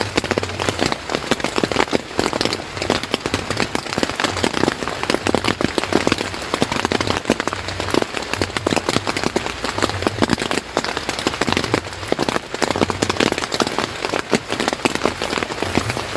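Steady heavy rain, with many individual drops striking a surface close by.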